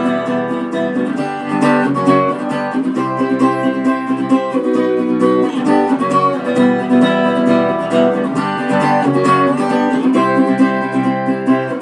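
Acoustic guitar strummed in a steady rhythm, playing the instrumental break between sung lines of a rock song.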